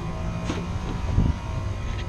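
A steady machine hum with several steady tones, broken by a sharp click about half a second in and a low thump a little past one second.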